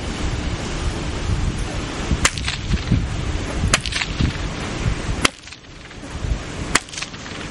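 Stock whip cracked four times from horseback, about a second and a half apart, each a sharp crack, over wind rumbling on the microphone.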